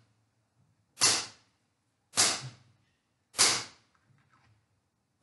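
Dry twigs being cut: three sharp cracks about a second and a quarter apart, each dying away quickly.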